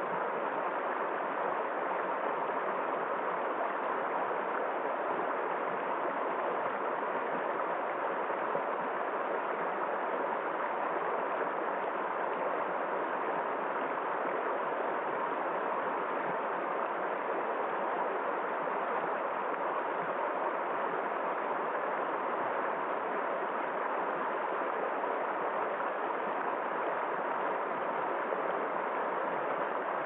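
Shallow, rocky river rushing over stones, a steady, even flow of water with no change in level.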